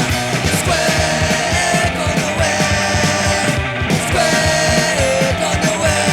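Punk rock soundtrack music: loud, driving drums and distorted guitar between vocal lines.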